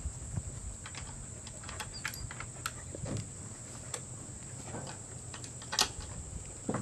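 Steady high-pitched drone of insects, with scattered light clicks and knocks from a wooden pen gate being unlatched and swung open. The loudest knock comes near the end.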